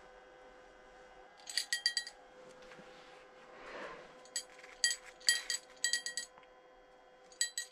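A small bell clipped to an ice-fishing rod's tip jingling in about six short bursts of quick metallic rings as the rod is handled.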